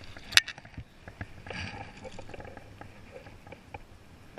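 A hooked fish being reeled in on a spinning rod and reel, with light splashing and handling noise at the water. A single sharp click about half a second in is the loudest sound.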